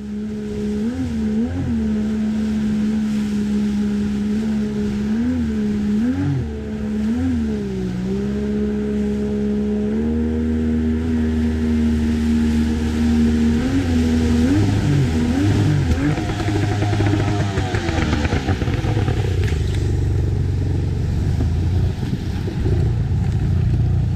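Boat motor running, its pitch rising and falling briefly several times as the throttle is worked, then holding steady, before turning rougher and noisier near the end.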